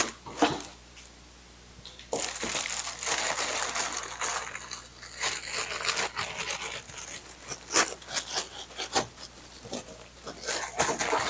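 Plastic packaging crinkling and rustling as it is handled. The crinkling is dense for a few seconds from about two seconds in, then breaks into scattered sharp crackles.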